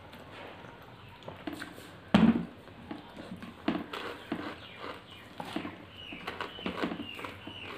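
Close-up eating sounds: wet chewing and lip smacking, with fingers squishing rice and curry together on the plates. A single louder thump comes about two seconds in.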